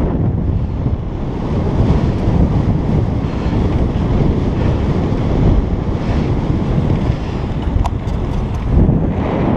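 Wind buffeting the microphone of a camera on a moving bicycle, a steady low rumble of noise; a few light clicks near the end.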